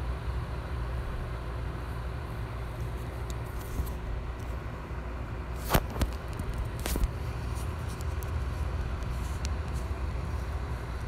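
Steady low background rumble with a light hiss, broken by a few short sharp clicks, the loudest two about six and seven seconds in.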